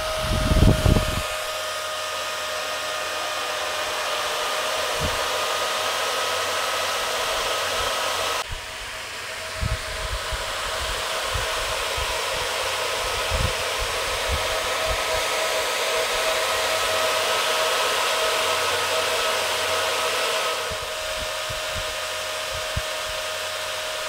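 Four cooling fans on a water-cooling radiator running steadily: an even rush of air with a steady whine, from the outdoor heat exchanger that dumps the Peltier elements' heat from the water loop. A few short low thumps come and go.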